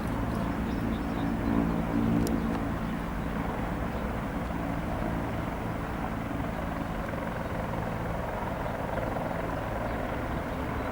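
Bell 412 twin-turbine helicopter running, its main rotor and engines giving a low pitched drone over a steady rush. The drone is strongest for the first couple of seconds, then settles into an even noise.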